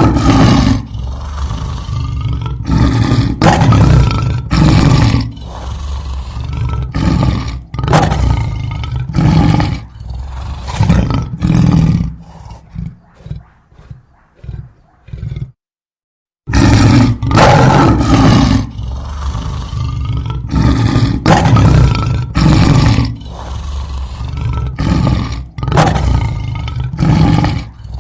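Lion roaring: a bout of loud, repeated roars that tail off into weaker grunts about twelve seconds in. After about a second of dead silence near the middle, the roaring bout starts over.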